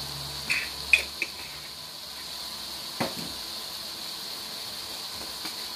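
Food sizzling in a stainless steel pot on the stove: a steady hiss, with a few light clicks in the first second or so and a single knock about three seconds in.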